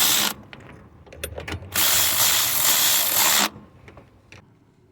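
Power ratchet spinning in the engine cover bolts in two runs: one finishing just after the start, and one of nearly two seconds starting about two seconds in. Light clicks and handling of tools and the cover come between and after.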